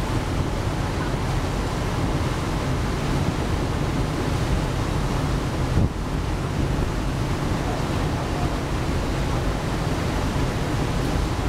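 Steady wind buffeting the microphone over the rush of churning wake water, with a low rumble from the ferry's engines underneath.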